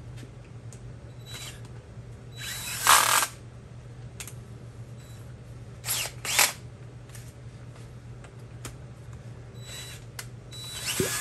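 Power drill spun in short bursts: one lasting under a second about two and a half seconds in, then two quick ones around six seconds, with scattered tool clicks between.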